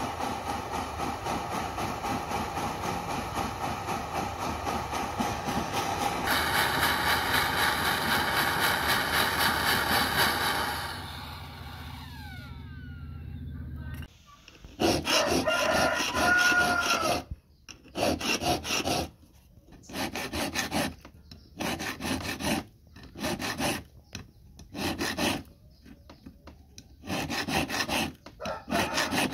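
A jeweller's torch flame hisses steadily on a metal ring during soldering, growing louder about six seconds in and dying away near the middle. After a short pause, a hand file rasps across the ring in repeated strokes of about a second each, with short gaps between them.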